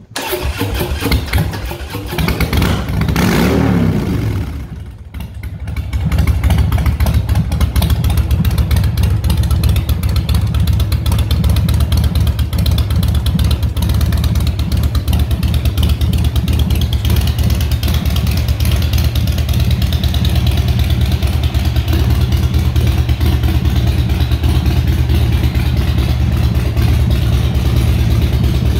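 Harley-Davidson Dyna Low Rider's Twin Cam 103 V-twin being started: a loud cranking sound rises and falls, there is a short lull, and about six seconds in the engine catches and settles into a steady idle.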